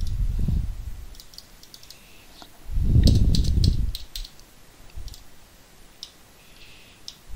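Computer mouse and keyboard clicks, a quick run of them about three to four seconds in and single ones later, over two low rumbles on the microphone, the louder one about three seconds in.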